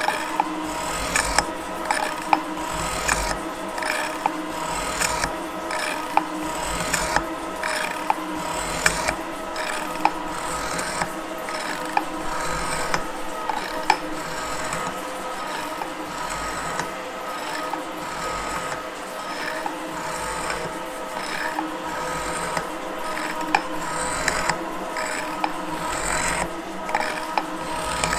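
Gould & Eberhardt metal shaper taking roughing cuts on A36 steel, its ram stroking back and forth with a sharp click about once a second as the power feed's ratchet indexes the table. A steady gear whine runs underneath.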